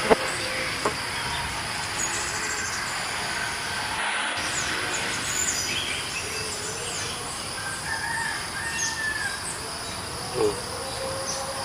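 Outdoor chorus of insects droning steadily, with scattered chirps and calls of small birds over it.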